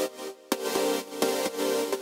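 Electronic music with sustained synth notes and a steady beat.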